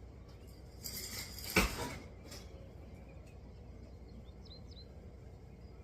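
A brief rustling scrape ending in one sharp knock, then a few faint bird chirps.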